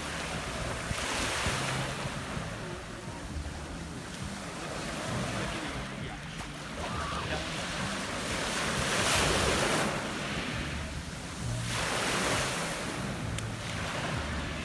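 Sea waves breaking and washing up a pebble beach, the hiss swelling every few seconds as each wave comes in. Wind rumbles on the microphone underneath.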